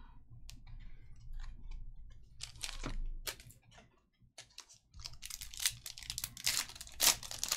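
Trading cards clicking and sliding against each other as they are handled. Then, from about five seconds in, the silver foil wrapper of a Panini Select trading-card pack crackles loudly in a dense run as it is torn open.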